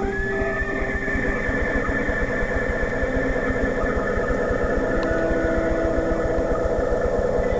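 Film soundtrack played through a television speaker: a long high note that rises slightly just after the start, then holds for about seven seconds over lower held notes and a fast, even low pulsing.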